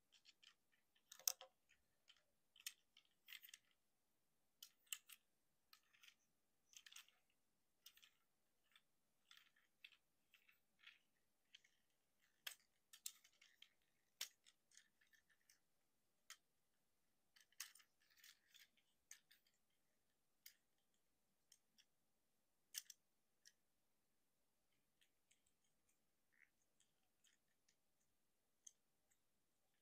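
Hard plastic clicks, snaps and scrapes of a Transformers Legacy United Voyager Class Motormaster action figure being transformed by hand, its parts clicking into place. The clicks are short, sharp and irregular, with the loudest about a second in.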